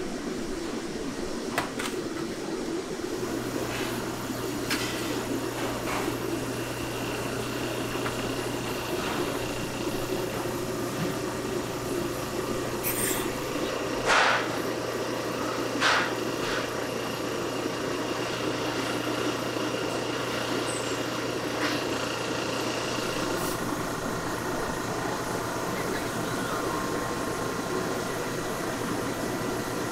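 Steady machine drone of commercial kitchen equipment, with a low hum that sets in about three seconds in. Two short knocks come near the middle, a couple of seconds apart.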